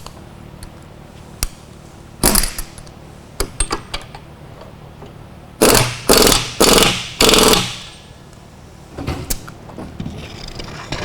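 Impact wrench run in four short loud bursts, tightening the left-hand retaining nut that holds the drum on the sander's shaft, with a shorter burst before and scattered tool clicks and knocks around them.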